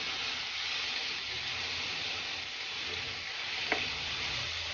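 Marinated chicken pieces sizzling steadily in a nonstick frying pan as they are stirred with a wooden spatula, with one short knock near the end.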